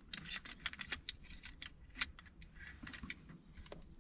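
Faint, irregular clicking and jangling of a car key and its key ring knocking against the steering column as the key is fiddled into place at the immobilizer.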